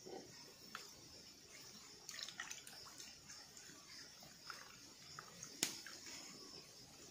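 Hands washing sweet potatoes in a steel pot of water: faint splashing and sloshing with scattered small clicks, and one sharper knock about five and a half seconds in.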